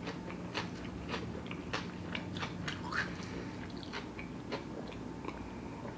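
Close-miked chewing of a mouthful of vegan sushi bake: soft, wet mouth clicks at an uneven pace.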